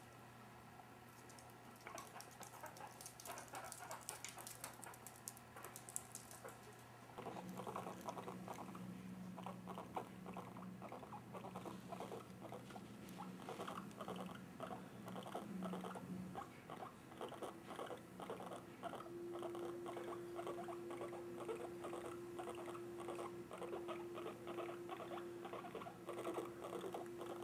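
Guinea pig purring while held and stroked: a low, rapid pulsing that sets in about seven seconds in and continues.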